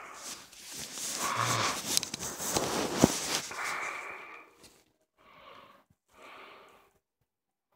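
Loud, close noises with a sharp click about three seconds in, then a person breathing faintly twice.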